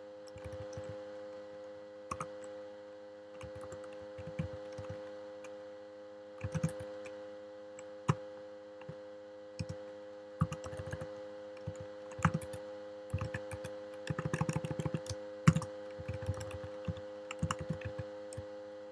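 Computer keyboard typing in irregular spurts, single key clicks and short rapid runs of keystrokes, the densest run about fourteen to fifteen seconds in, over a steady electrical hum.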